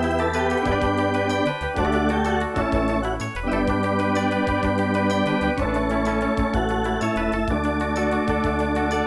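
Wersi City Rack KF2 organ module playing sustained organ chords over a separate bass line, the chords changing about every two seconds.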